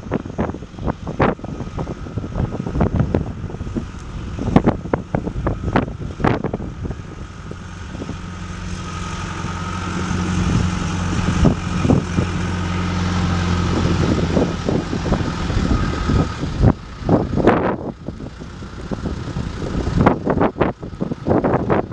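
Diesel engine of a John Deere 310SG backhoe loader running, building up louder from about eight seconds in and dropping back about seventeen seconds in, with many sharp knocks and clanks throughout.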